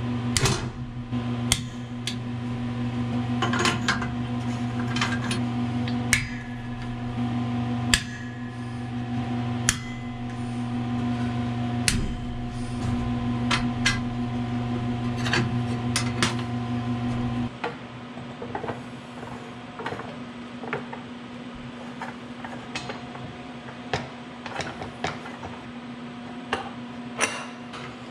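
Hand tools clinking and tapping against the metal knife holders and cutting-stick channels of a Challenge three-knife book trimmer during a knife and cutting-stick change: many sharp metallic clicks and knocks. Under them a steady machine hum runs and stops suddenly about two-thirds of the way through.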